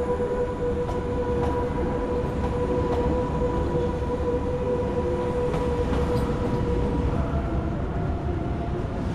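Swiss electric intercity train pulling out of the station and rolling past: a steady low rumble from the wheels and running gear under a steady electric whine. The whine fades about two-thirds of the way through as a slightly different tone takes over, with light clicks scattered through.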